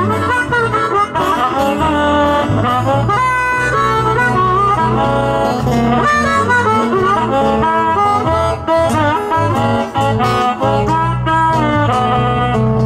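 Blues harmonica solo with notes that bend and waver, over acoustic guitar and electric bass guitar accompaniment.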